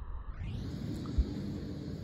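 Steady low rumble of outdoor background noise with a faint hum, and one short low thump a little over a second in.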